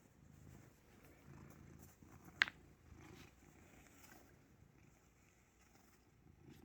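A cat purring faintly, the low rumble swelling and fading with its breaths. One sharp click about two and a half seconds in.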